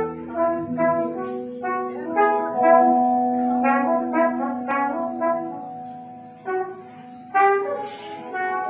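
Improvised music: a trumpet playing a run of short notes over held lower tones, thinning out for a moment before a loud note comes back in near the end.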